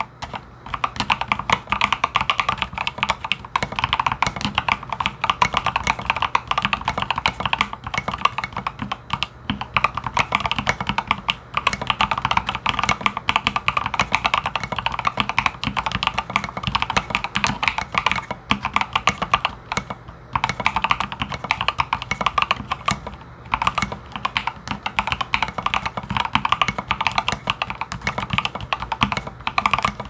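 Fast, continuous typing on an Exclusive E8.5 mechanical keyboard with lubed and filmed Gateron Ink Black linear switches, an aluminum plate and SA-profile keycaps: a dense stream of keystrokes with a few short pauses.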